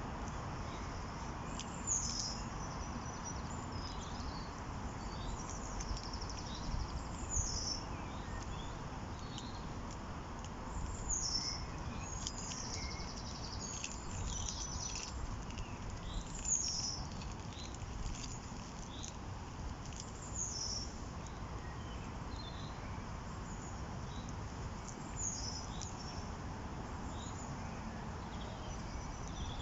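Birds calling: short high chirps, many of them falling in pitch, every second or two over a steady low rumble.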